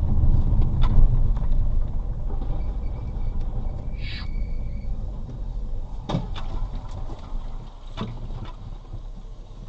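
Low vehicle rumble with a few sharp knocks and a brief high squeak about four seconds in, fading a little toward the end.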